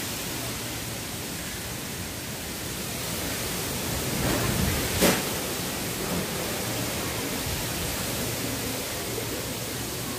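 Strong wind blowing steadily, swelling into a gust about four seconds in, with a sharp knock at its peak about five seconds in.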